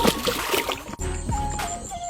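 Background music with a simple stepping melody, with splashing water mixed in.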